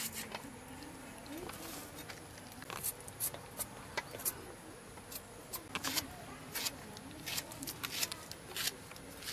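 Raw green banana being peeled and cut on an upright boti blade: irregular sharp clicks and taps of the blade going through the firm flesh, some every second or so.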